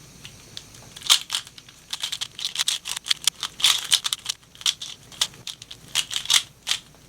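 Rubik's cube being turned rapidly with one hand: quick bursts of plastic clicks and clacks as the layers snap round, starting about a second in.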